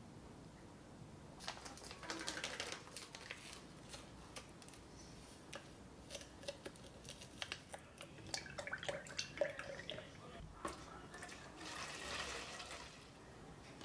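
Small clicks, taps and paper rustles against a plastic measuring jug as a starter sachet is emptied into the milk, then milk poured from the jug into a carton, splashing briefly near the end.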